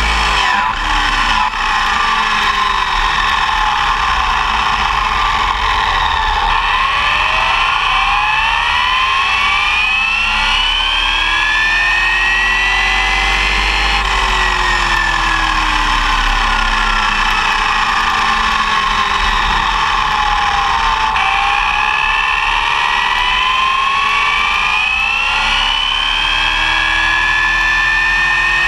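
ARRMA Typhon 6S electric RC buggy driving on asphalt, heard from its onboard camera: the brushless motor and geartrain whine, rising and falling in pitch as the car speeds up and slows, over a steady low rumble of road and wind noise.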